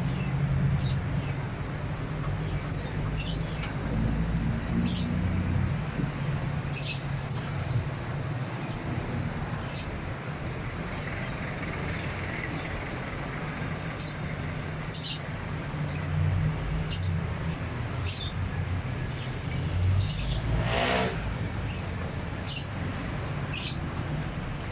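A motor vehicle engine runs with a steady low rumble, while a bird chirps in short high notes every second or two. A brief rasping burst comes near the end.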